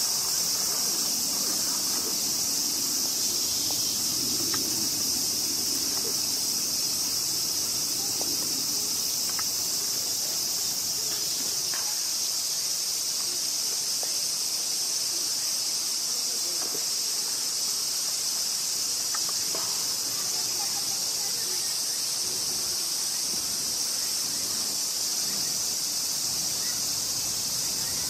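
A steady, high-pitched insect chorus, an unbroken shrill buzz that holds level throughout.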